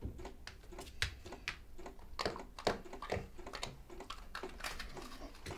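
A dog lapping from a plastic bowl: faint, irregular wet clicks, a few a second.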